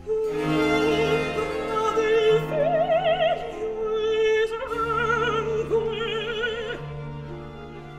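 Background music: an operatic voice singing a sustained phrase with wide vibrato over orchestral accompaniment. It enters at the start and eases off near the end.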